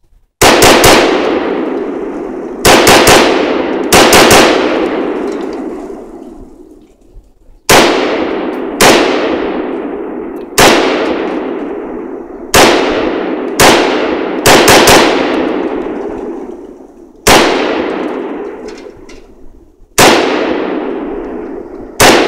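Galil rifle in 5.56/.223 firing about a dozen shots, some single and some in quick pairs or triples, spaced one to three seconds apart. Each sharp crack is followed by a long echo that fades over a couple of seconds.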